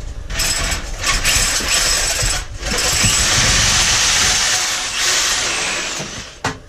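Power drill boring through a wall with a large bit, in two loud spells with a brief break about two and a half seconds in, stopping near the end.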